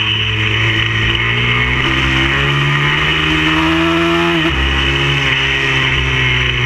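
Stock 160cc single-cylinder four-stroke pit bike engine under throttle, heard from an onboard camera; its pitch climbs steadily for about four seconds, then drops sharply and holds steadier as the bike carries on round the track.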